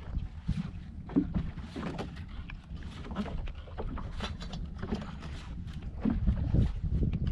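Fishing boat's motor running steadily at sea, with wind buffeting the microphone.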